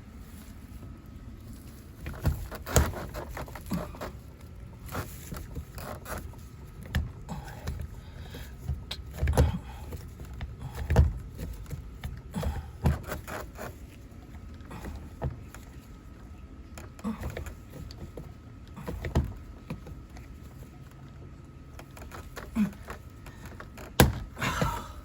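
Hand riveting tool being worked: irregular clicks, clunks and knocks over many squeezes, with louder knocks now and then.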